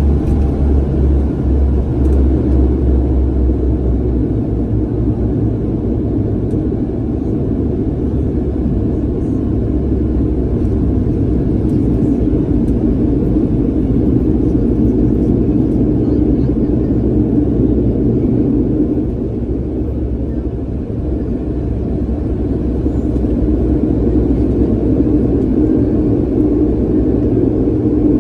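Inside an airliner's cabin on the landing roll: a steady loud rumble of engines and tyres on the runway, with a low hum. It eases a little for a couple of seconds about two-thirds of the way through.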